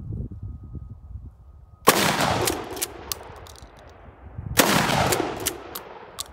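Two 12-gauge shots from a Mossberg pump-action shotgun firing 3-inch 00-buckshot shells, about 2.7 seconds apart, each followed by a long rolling echo.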